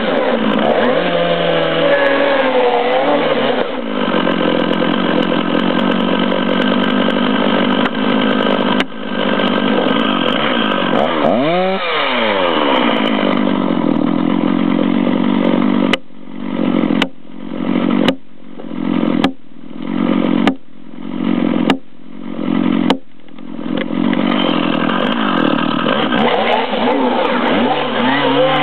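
Chainsaw engine running loud at high revs, its pitch dipping and climbing back about a third of the way through. Midway it breaks into a run of seven even pulses about a second apart before settling back to a steady run.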